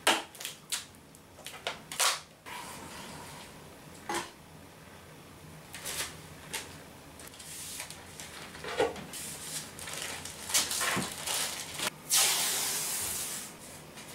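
Thin clear plastic sheets being handled and flexed on a workbench, giving a series of sharp clicks and crackles. Near the end comes one longer, louder rasp of tape being pulled off a roll.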